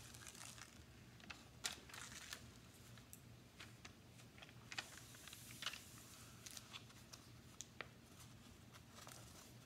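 Faint, scattered paper rustling and crinkling, with light ticks, as a diamond painting canvas and its printed covering paper are handled and smoothed flat.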